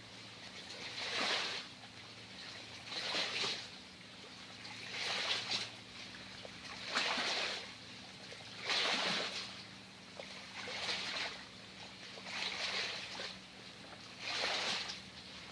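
Rhythmic whooshing swells of noise, about one every two seconds, over a steady low hum.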